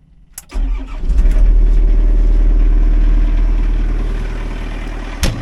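Liugong 9051 mini excavator's diesel engine starting after its glow plugs have run: a click, then it catches about half a second in and runs loud and steady, easing down slightly as it settles. A short sharp knock near the end.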